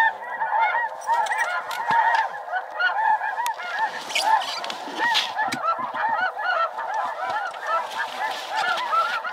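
A dense chorus of snow goose calls: many short, high honks overlapping without a break, at an even level.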